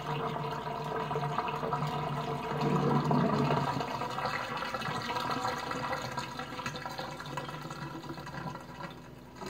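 Water draining out of a stainless-steel kitchen sink after washing collard greens, a steady gurgle down the drain that slowly fades toward the end as the basin empties.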